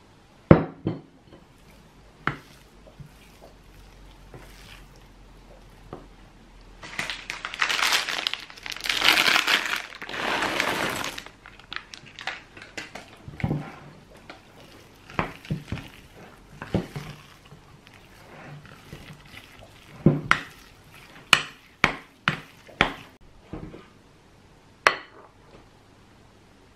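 Metal spoon clinking and knocking against a glass mixing bowl while stirring thick chocolate cookie dough, in scattered sharp strikes with a quick run of them near the end. About seven seconds in, a dense rustling, rattling stretch of about four seconds as chocolate chips go into the bowl.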